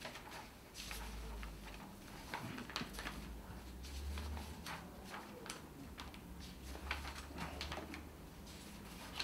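Quiet room tone: a low hum with scattered faint clicks and taps.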